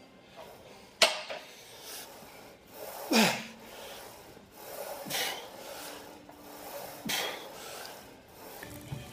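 A man's forceful breaths of effort, four of them about two seconds apart, the second the loudest and ending in a grunt that drops in pitch.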